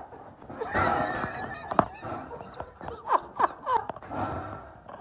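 People snickering and laughing in short, high squeals and yelps, with a sharp click about two seconds in.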